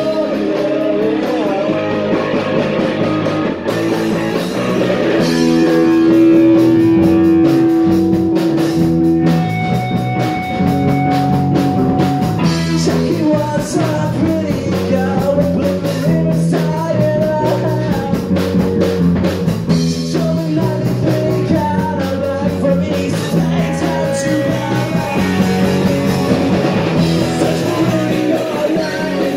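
Punk rock band playing live: electric guitar and drum kit, with singing.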